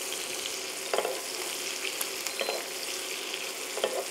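Pigeon breasts sizzling steadily in butter and oil in a frying pan, with a few short clicks and scrapes of utensils against the pan as the melted butter is basted over the meat.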